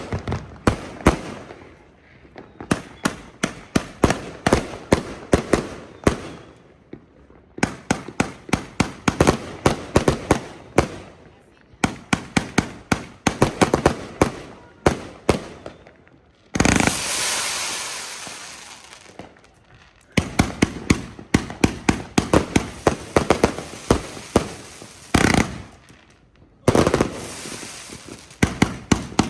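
238-shot firework cake firing: rapid volleys of sharp shots, several a second, in runs broken by short pauses. About 17 seconds in, a loud hissing crackle lasts about three seconds.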